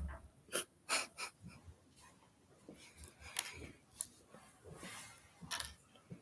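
Quiet small room with scattered short breaths and rustles from people sitting close to the microphone, with a few brief clicks.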